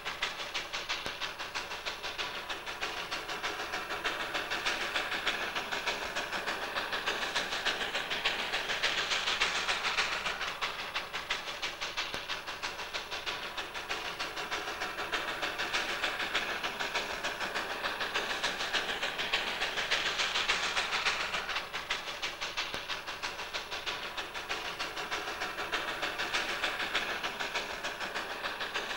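Narrow-gauge Darjeeling Himalayan Railway steam locomotive working a train uphill: rapid exhaust chuffing with steam hiss that swells and fades.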